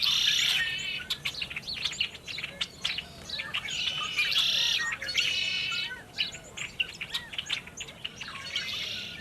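A mix of many birds chirping and calling at once: quick overlapping chirps, with harsher buzzy calls at the start and again about four to five seconds in.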